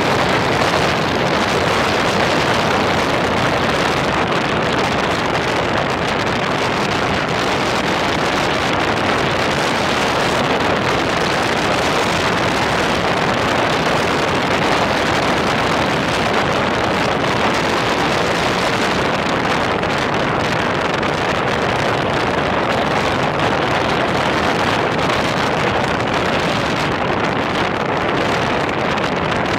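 A BMW motorcycle riding steadily along a gravel road, heard as a constant rush of wind on the bike-mounted camera's microphone over the engine and the tyres on loose gravel.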